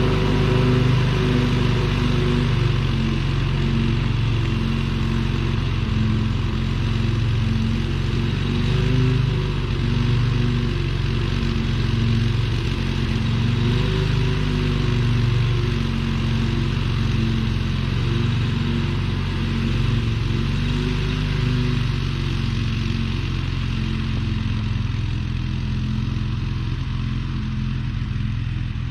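16.5 horsepower twin-cylinder Briggs & Stratton engine of a riding lawn mower, fitted with a new ignition coil, running steadily at an even speed.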